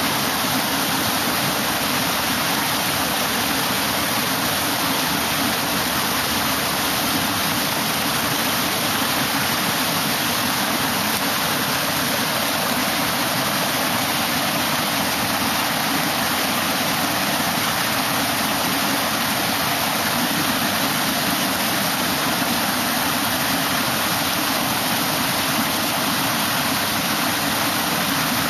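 Water rushing steadily over the stepped weirs of a concrete fish ladder, an even, unbroken cascade of white water.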